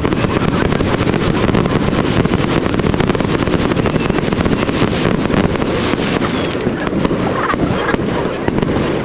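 Fireworks display in full barrage: a dense, rapid crackle of many small pops over a steady low booming, without a break.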